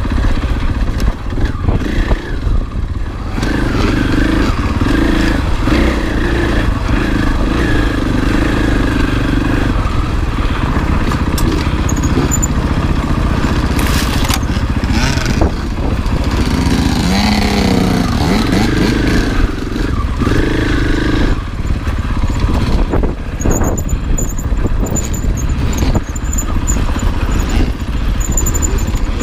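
2020 Husqvarna FE 501 enduro bike's single-cylinder four-stroke engine running under way on dirt single track, its revs rising and falling, with occasional knocks.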